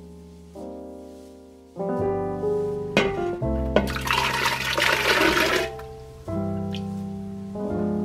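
Background instrumental music with piano notes. About four seconds in, a splash lasting about a second and a half as diced onion, celery and carrot are tipped from a bowl into a pot of water.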